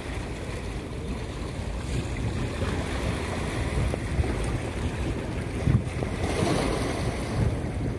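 Small sea waves lapping and washing over a rocky shore, with wind buffeting the microphone. One wave washes in more loudly about six seconds in.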